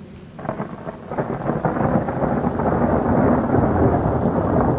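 Thunder from a lightning strike about a kilometre away. It breaks in suddenly about half a second in with a crackle, then swells into a long, loud rumble.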